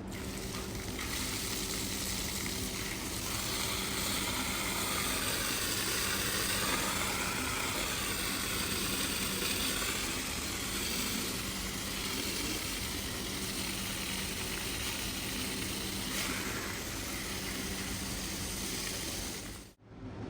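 Steady hissing spray-like noise with a low, steady machine hum underneath. It cuts off abruptly near the end.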